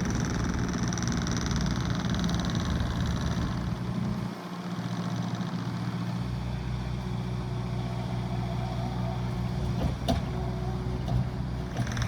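Case TR310B compact track loader's diesel engine running steadily, with a short dip in the low rumble about four seconds in and a sharp click near the end.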